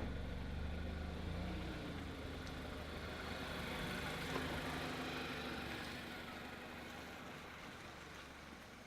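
A steady low engine-like rumble under a hiss, slowly growing fainter.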